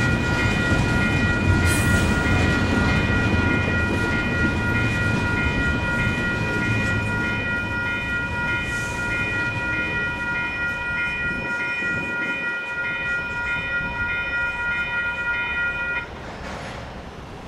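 Electronic railroad crossing bells (WCH Type 4) ringing steadily over the rumble and clatter of a passing double-stack intermodal freight train. The train noise fades as the last cars go by, and the bells stop abruptly about 16 seconds in.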